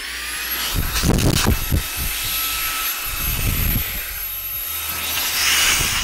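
Xiaomi Mi Vacuum Cleaner Mini's motor running at full power: a high whine that rises in pitch as it speeds up at the start, then holds steady over a rush of air blowing hard from its exhaust, with a few low thumps about a second in. Near the end the whine drops in pitch as the motor winds down.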